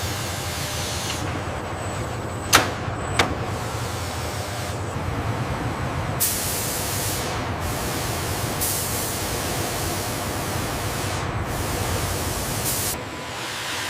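Steady machinery hum with two sharp clicks a few seconds in and several long bursts of hissing from about six seconds on.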